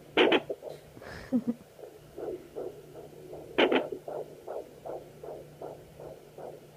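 Fetal Doppler picking up a 34-week baby: a fast, even, whooshing heartbeat over a steady low hum. It is broken twice by loud, sharp knocks about three and a half seconds apart, which are the baby's hiccups.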